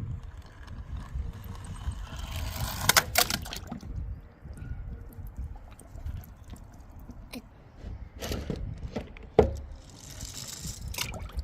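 Toy cars rolling down a ramp and splashing into water: a series of clattering knocks and splashes, the sharpest knock about nine seconds in, over a steady low rumble.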